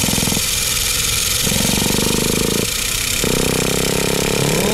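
Traxxas Nitro Rustler's 2.5 nitro engine running loudly just after being fired up for the first time in three months, still in break-in. Its pitched note comes and goes in bursts about every second and a half.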